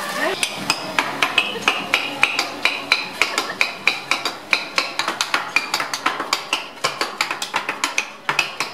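Teppanyaki chef's metal utensils rapped on the steel griddle in a fast drumming rhythm: sharp ringing metallic clicks, about five or six a second, getting quicker and denser in the second half.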